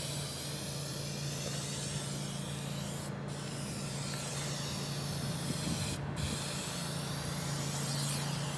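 Aerosol spray can of trim paint hissing in long passes, with two brief breaks about three and six seconds in, over a steady low hum.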